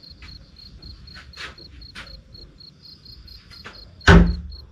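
A window banging in strong wind: a few light knocks, then one loud bang with a short low boom about four seconds in, over crickets chirping steadily in regular pulses.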